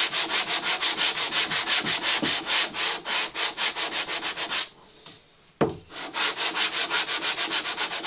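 Abrasive paper worked by hand in quick back-and-forth strokes, about five a second, over a plywood scarf bevel, the last smoothing after planing. Just before the middle the strokes stop for a second or so, broken by a single sharp knock, then start again.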